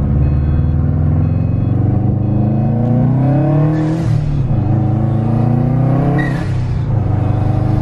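Turbocharged flat-four of a 2008–2014 Subaru WRX with a catless downpipe, heard from inside the cabin on a light pull. The engine note rises, drops at a gear change about four seconds in, rises again and drops near six seconds. A rush of air at each change is put down by the owner to the wastegate not releasing in time.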